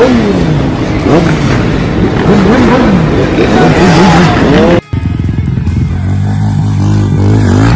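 Several motorcycle engines, street sport bikes and a dirt bike, revving hard, their pitches rising and falling over one another. About five seconds in the sound cuts off suddenly and background music takes over.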